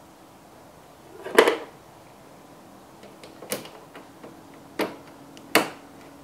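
Plastic grill retaining clips being pushed back into their holes along a Toyota IS300's grill: four sharp clicks, the first and loudest about a second and a half in, the rest spread over the last three seconds.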